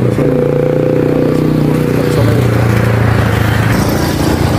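Motorcycle engine running steadily while riding along, its note dropping about two seconds in as it eases off.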